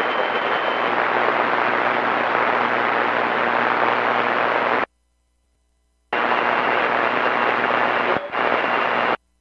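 Air traffic control radio static: a steady, loud hiss with no voice on the frequency. It cuts off abruptly about five seconds in, comes back a second later with a faint high whine underneath, and cuts off again just before the end.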